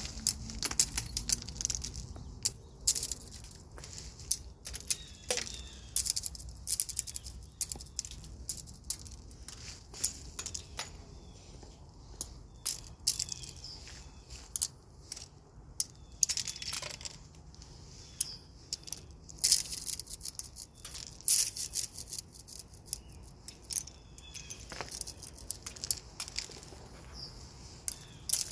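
Ice glaze from freezing rain crunching and cracking, with many irregular sharp, brittle clicks and tinkles of breaking ice.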